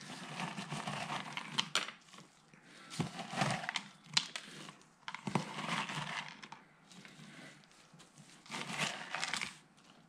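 Disposable plastic gloves crinkling and a plastic tub rustling as a hand scoops shredded cheese and sprinkles it, in about five separate bursts with small clicks.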